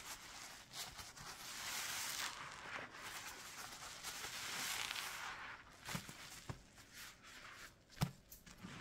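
A sponge loaded with thick dish-soap and Fabuloso lather being squeezed and worked: swells of wet, squishing hiss, with a few sharp clicks near the end.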